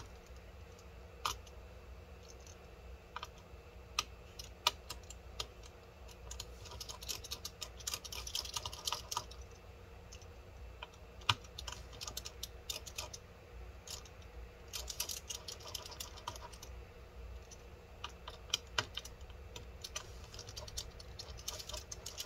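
Scattered light clicks and ticks of a pentalobe P2 precision screwdriver working the tiny antenna-cable screws out of a 2019 16-inch MacBook Pro, with a couple of brief runs of quicker ticking, over a low steady hum.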